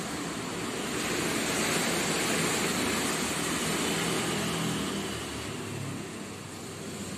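Background road traffic: a steady rush with a faint engine hum, easing off about six seconds in and swelling again near the end.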